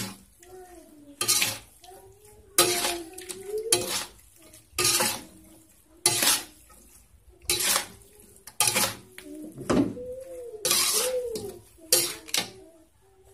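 Metal slotted spatula scraping and clanking against a metal wok as fried instant noodles with tofu and cabbage are tossed, about a dozen strokes roughly once a second, mixing the seasoning powder through the noodles.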